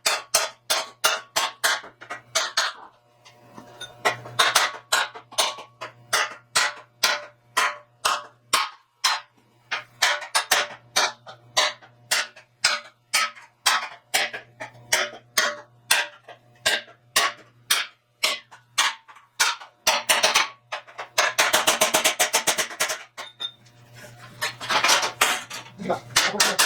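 Steel hammer blows on a bare steel truck bumper, each strike ringing, about two a second, with quicker runs of blows twice near the end. The hammering is beating a dented, pushed-in section of the bumper back out. A faint steady low hum sits underneath.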